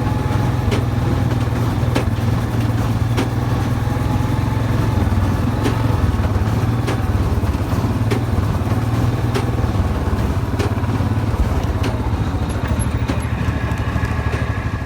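Tractor pulling a hay baler: a steady engine drone with a sharp clack from the baler about every 1.2 seconds.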